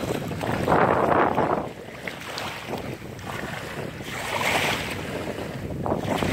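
Wind buffeting the microphone over shallow river water sloshing around a wading person's legs and hands as he reaches into a wire keepnet. The wind noise swells twice, about a second in and again around four and a half seconds.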